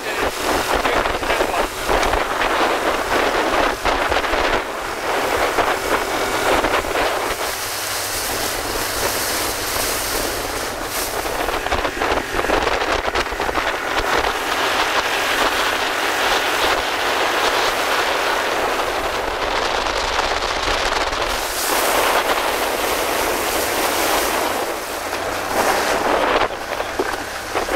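Wind buffeting the camera microphone on board a sailing dinghy under way, a steady gusty rush with water sloshing beneath it. It dips briefly a little before the end.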